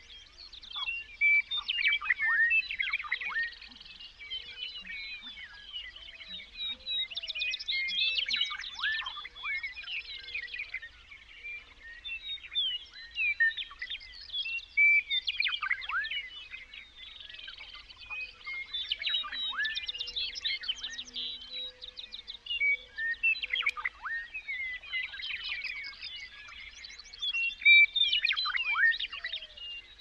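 Several songbirds singing at once: overlapping chirps, rapid trills and quick whistles that sweep downward, coming in busy bursts every few seconds.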